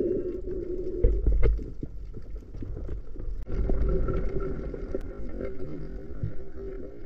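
Underwater sound picked up through a camera housing: low water rumble and a humming tone that fades out after about a second and returns halfway through, with a few sharp clicks.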